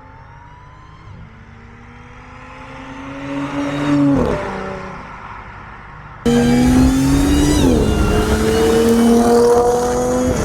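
Supercharged 3.0 V6 of an Audi S4 on a new exhaust accelerating past, rising in pitch and getting louder until about 4 s in, then dropping away. After an abrupt cut about 6 s in it accelerates hard and louder, with a brief dip in pitch at an upshift, then pulls again.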